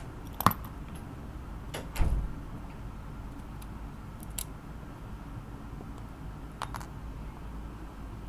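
A few small sharp clicks and one light knock about two seconds in, as a screwdriver and tiny screws are handled while putting the screws back into an iPhone 5, over a steady faint hum.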